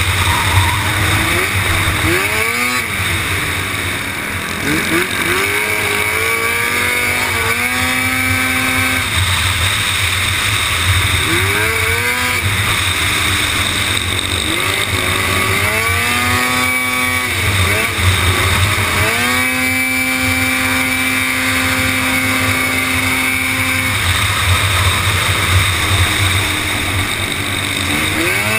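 Supermoto racing quad's engine at race pace, revving up and dropping away again and again in pitch as it goes through the corners, held at one steady high pitch for several seconds about two-thirds of the way through.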